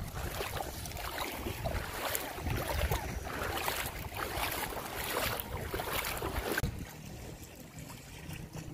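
Shallow sea water splashing around wading legs, with wind on the microphone. The splashing is uneven and choppy, and it drops off sharply about two-thirds of the way through.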